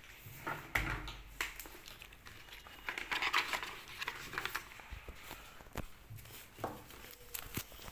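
Rustling and scattered clicks and knocks of objects being handled in a small room, with a burst of rustling about three seconds in.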